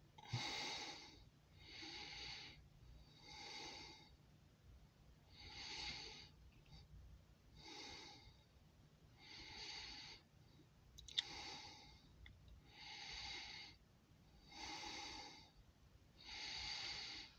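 Faint, even breathing close to the microphone, a breath in or out about every second and a half, with a single sharp click about eleven seconds in.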